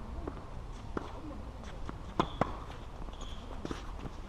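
Tennis ball impacts, racket strikes and bounces on the court: a string of sharp pops, the two loudest about two seconds in, a quarter of a second apart, with faint voices.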